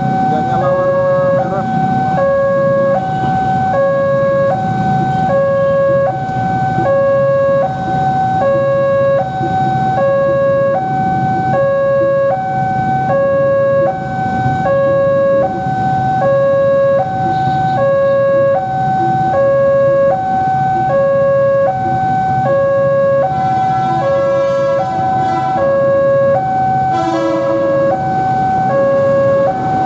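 Railway level-crossing alarm sounding from a horn loudspeaker on the signal post: two electronic tones alternating high and low in an even, repeating pattern, signalling that the barrier is closed and a train is approaching. Idling motorcycle and car engines underneath, and other tones overlap the alarm near the end.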